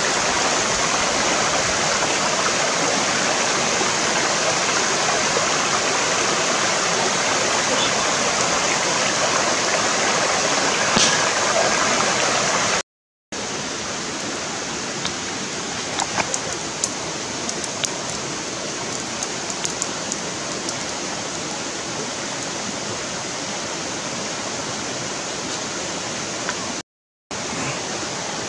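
Stream water rushing over rocks, a steady rushing that goes a little quieter about halfway through. The sound drops out for a moment twice, and a few faint clicks come through in the second half.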